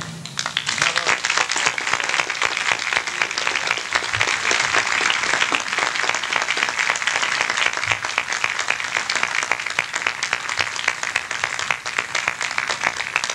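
Audience applauding as the band's final chord ends: dense clapping that builds within the first second and carries on steadily.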